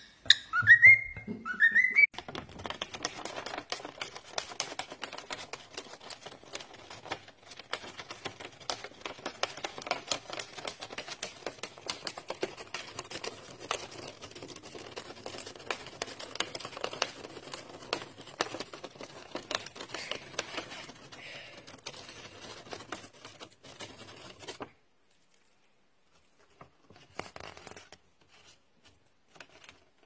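Cockatiel whistling in short rising notes for about two seconds, followed by a long stretch of rapid, irregular clicking and crackling that stops abruptly near the end.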